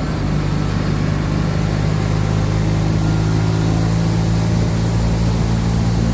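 Diesel engine of a Mercedes-Benz OF-1722M city bus running steadily under load, with a faint high whistle rising over the first few seconds.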